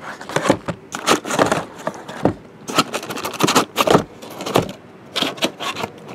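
Sealed case and wrapped boxes of trading cards being opened and handled: a run of short scrapes, crackles and rattles, several a second.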